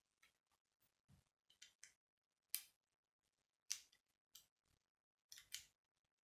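Hard plastic K'nex pieces clicking as they are handled and pressed together, in a few sharp clicks: one about two and a half seconds in, one near four seconds, and a quick pair near the end, among fainter taps.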